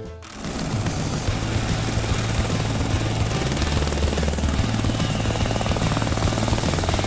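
A steady mechanical whirr with a fast, even flutter and a thin high whine over it, as from a rotor or small motor running continuously.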